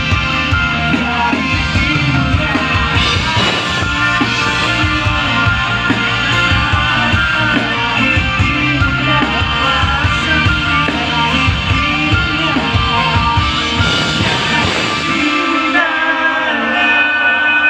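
Live rock band playing through a concert PA: electric and acoustic guitars, bass, drums and vocals. About fifteen seconds in, the drums and bass drop out, leaving guitars ringing on held notes.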